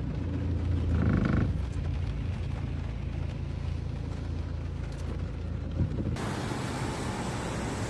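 A vehicle engine running with a low, steady hum, and a short tone about a second in. A little after six seconds it cuts abruptly to a steady rushing noise.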